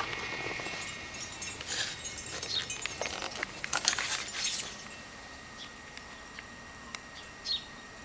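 Plastic center dash trim panel being handled, a quick run of clicks and rattles in the first half, loudest about four seconds in.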